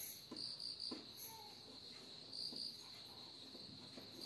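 Faint cricket chirping, a thin high trill that pulses in short groups, with a few soft taps and scratches of a marker writing on a whiteboard in the first second or so.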